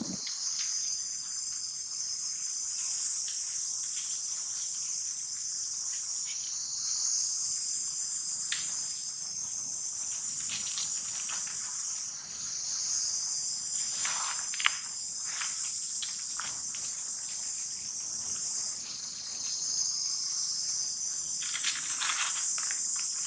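Steady, high-pitched chorus of insects shrilling without pause, with a few brief rustles in the middle and near the end and one sharp click about two-thirds of the way through.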